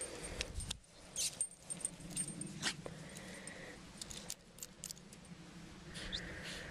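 Metal fittings on a dog's harness and lead clip jingling and clicking in quick, irregular ticks as the dog shifts about and is patted.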